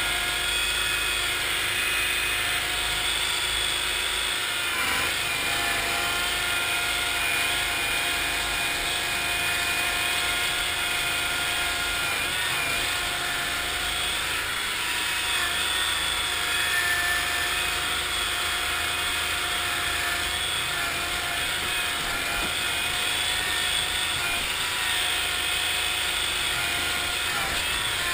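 1974 Cushman Trackster tracked vehicle's engine running steadily under way, its pitch rising and falling slightly as the machine crawls along.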